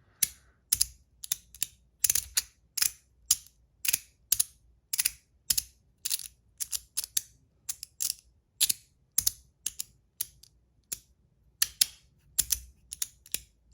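3D-printed magnetic haptic slider fidget being slid back and forth, its magnets snapping the plates into place with sharp, crunchy clicks, roughly two a second, some in quick pairs.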